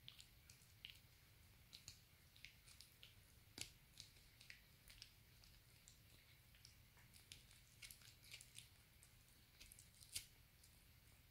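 A Maltipoo chewing a dog chew: faint, irregular crunches and clicks of teeth, a few a second. Two sharper snaps come about three and a half seconds in and again about ten seconds in.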